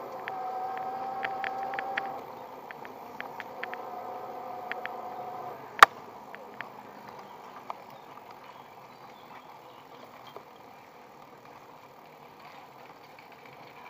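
Electric bicycle's 250 W hub motor whining with one steady mid-pitched tone, which cuts off about five and a half seconds in. Light clicks and rattles from the bike come over the whine, and a single sharp knock follows just after it stops. After that only a quieter steady rolling hiss is left.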